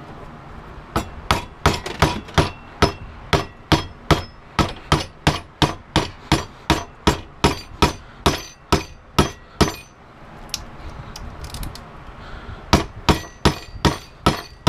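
Hammer blows struck in a steady run of about three a second, then, after a short pause, a second run, driving a screwdriver to pry the copper out of a scrapped cold mist humidifier part.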